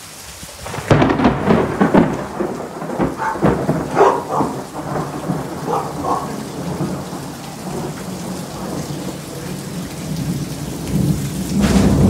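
Close thunder breaking suddenly about a second in, a run of sharp cracks and rumbling for several seconds, then steady rain falling. The storm noise swells again near the end.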